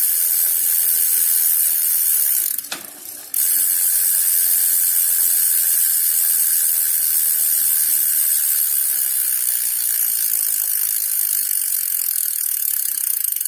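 Modified 7-speed threaded bicycle freewheel clicking in a fast, loud buzz as the rear wheel coasts, its pawls snapping over the ratchet teeth: the loud 'cricket' freewheel sound, made by a repositioned wire ring spring on the pawls. The buzz breaks off briefly about three seconds in, then carries on.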